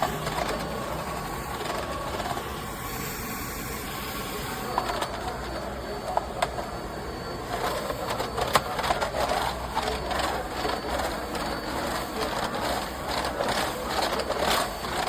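Bagless canister vacuum cleaner running steadily, with a few sharp clicks of debris being sucked up.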